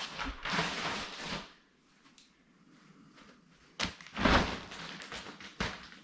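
Plastic wrap rustling and crinkling as it is pulled back off a new mattress, with a short sharp knock a little after halfway, followed by more rustling.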